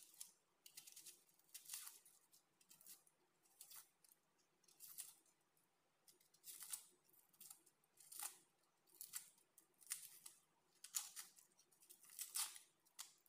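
Kitchen knife slicing an onion on a plastic cutting board: quiet cuts at roughly one a second, some in quick pairs.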